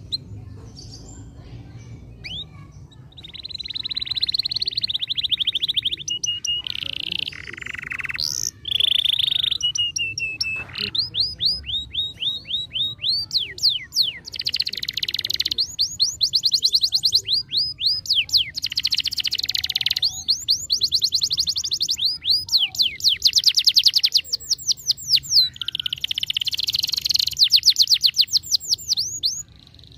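Domestic canary singing a long, loud song: buzzy rolling trills and long runs of rapid repeated chirps, starting a few seconds in and going on until just before the end.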